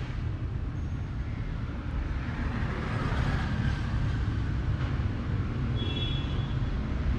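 Street traffic: a steady rumble of passing vehicles, with a brief faint high tone about six seconds in.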